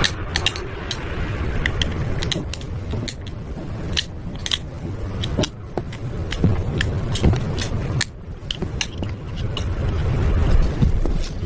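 Slime being mixed by hand, with many irregular sharp clicks and pops over a low rumble.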